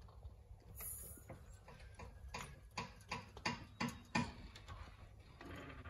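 Trolley jack being lowered under a van: a brief hiss about a second in, then a run of sharp clicks and knocks, about three a second, growing louder and peaking near four seconds in as the jack arm comes down.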